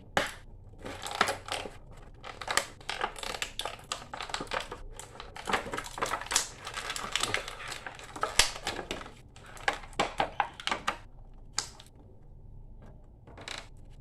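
Stiff plastic action-figure packaging crackling and crunching as a figure is worked free of its tray, in irregular clusters of sharp crackles, with a quieter spell near the end.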